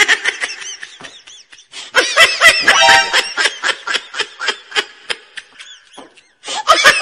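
Laughter and giggling in quick, high-pitched bursts, breaking off briefly shortly before the end.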